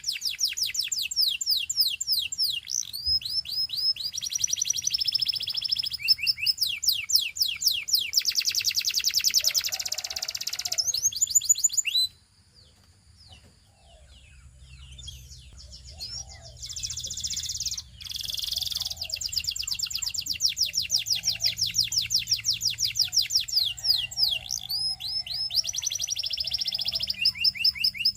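Russian canary singing: fast trills of rapidly repeated high notes, changing speed and pitch from phrase to phrase. The song breaks off about twelve seconds in, comes back with scattered notes, and picks up into full trills again.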